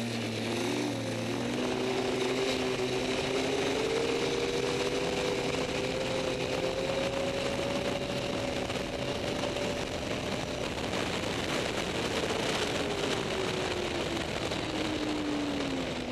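Snowmobile engine running under way: its pitch climbs over the first several seconds as it speeds up, holds, then falls again near the end as it slows. A steady rushing noise runs underneath.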